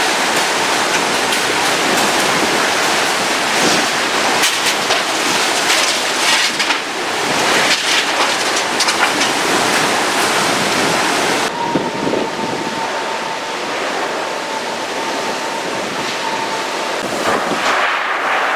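Category 4 hurricane eyewall winds and rain blowing hard, with gusts hitting the microphone. About halfway through, a steady high tone comes in over the wind and holds for about five seconds.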